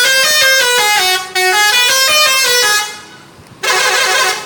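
Multi-tone telolet bus horn playing a quick tune of stepped notes for nearly three seconds, then, after a short gap, one brief blast near the end.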